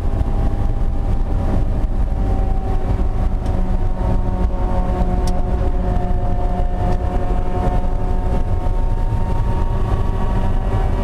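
Race-prepared Mazda Miata's four-cylinder engine running hard at a fairly steady pitch, heard from inside the stripped, roll-caged cockpit along with road noise, with a few sharp clicks in the middle.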